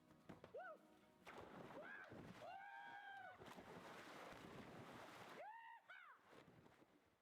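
Faint splashing water with a few short shouts and yells over it; the sound cuts off abruptly at the end.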